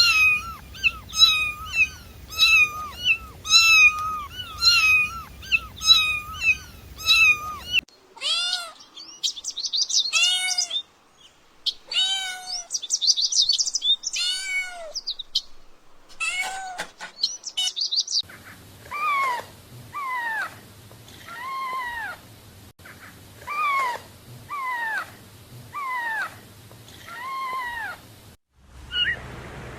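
Kittens meowing over and over, in three stretches. First come fast, high meows about two a second, then higher, arching cries, then slower meows that fall in pitch, about one a second.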